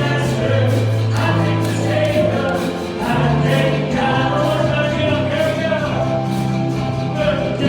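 Choir singing gospel music over an instrumental backing with long held bass notes.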